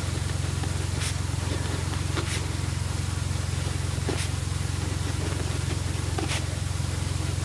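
Domestic cat purring steadily, with a few short scratches of a pen writing on paper.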